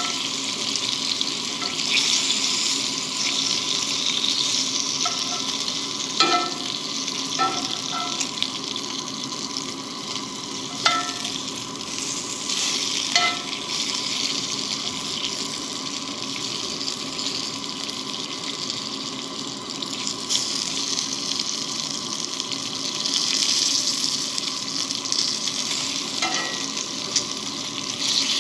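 Bacon sizzling steadily in a cast-iron skillet on a propane camp stove. A handful of short metal clinks ring out as tongs and a spatula turn the strips against the pan.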